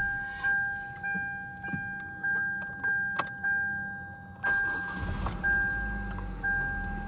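A car's warning chime dings over and over in a steady rhythm, about two dings a second. From about five seconds in, a low engine rumble comes in under it as the engine is restarted.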